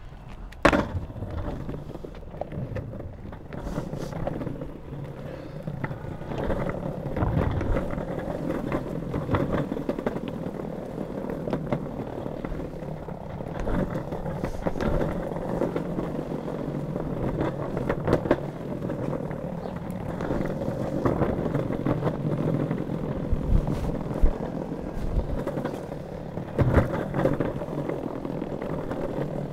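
Pantheon Trip drop-through longboard's wheels rolling over brick block paving: a steady rumble broken by frequent sharp clacks, with a sharp knock about a second in.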